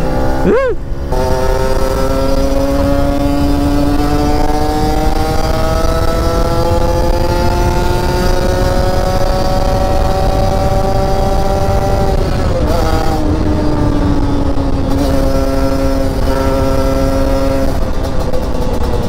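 Kawasaki Ninja 150 RR two-stroke single engine running under throttle on the road, its pitch sweeping quickly up and down right at the start, then holding steady and slowly climbing, with a brief dip about twelve seconds in. Wind rushes steadily under the engine note.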